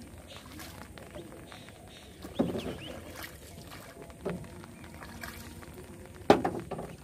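A wooden paddle being handled in the water beside a wooden boat, with three sudden sounds from the paddle about two seconds apart; the last is the loudest.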